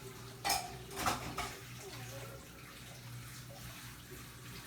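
Three short, sharp clattering knocks in quick succession about half a second to one and a half seconds in, over a steady low hum.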